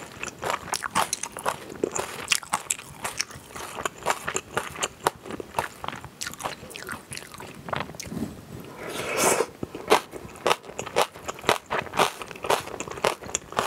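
Close-miked eating of jajangmyeon: a steady run of wet chewing clicks and crisp crunches, with one longer, louder mouth sound about nine seconds in.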